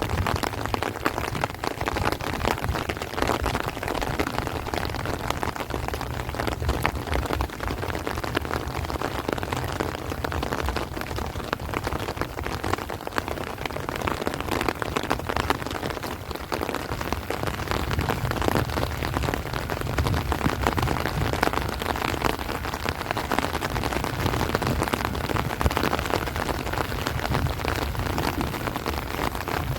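Heavy rain pouring steadily onto rice plants and tree leaves, a dense patter with a low rumble of strong wind on the microphone.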